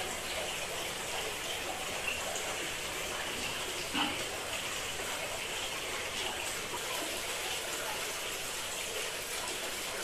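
Steady rushing background noise like running water, with one short sound about four seconds in.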